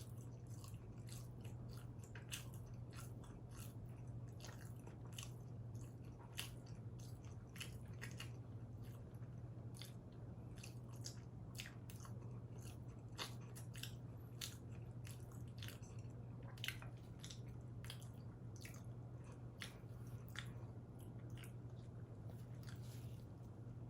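Close-miked chewing and biting of combination pizza: many small, irregular mouth clicks and crunches. A steady low hum runs underneath.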